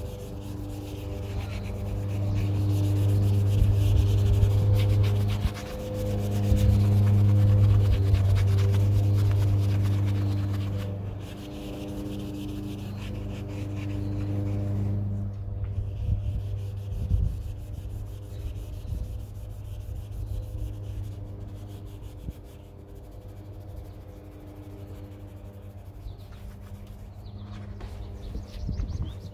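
Cloth rubbing metal polish into the machined face of an original 1976–79 C3 Corvette aluminum wheel, a steady scratchy scrubbing as the polish turns black with lifted oxidation. A steady low hum runs underneath, louder for the first ten seconds or so and softer after.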